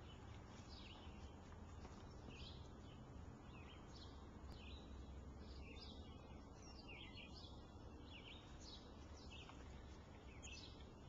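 Faint birdsong: many short, high chirps, each sliding downward in pitch, repeated throughout over a low, steady background rumble.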